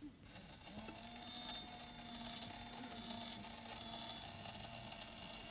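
Small electric motor whirring steadily inside a battery-powered novelty coin box, running its mechanism to take the penny set on its lid; it starts just after a light click.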